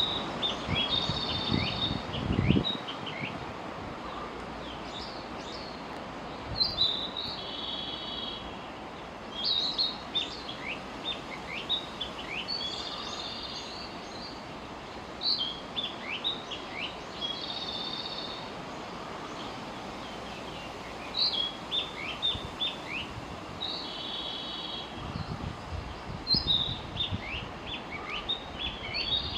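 Narcissus flycatcher singing: short song phrases repeated every few seconds, each a run of quick falling whistled notes mixed with buzzy trills, over steady background noise. A few low thumps come near the start and again near the end.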